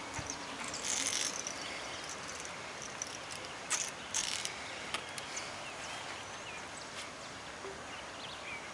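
Steady outdoor background noise with a few short clicks and brief scratchy rustles, and faint high chirps above it.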